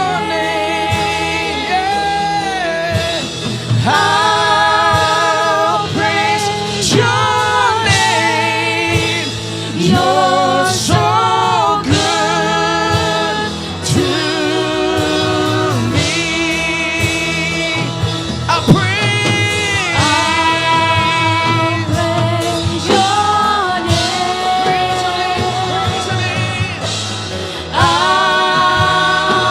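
Live gospel worship music: voices singing a praise song over a band accompaniment.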